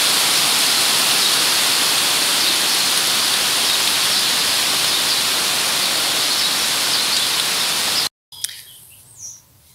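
Heavy rain pouring down, a loud, steady, even hiss that cuts off suddenly about eight seconds in. A faint chirp follows in the quiet after it.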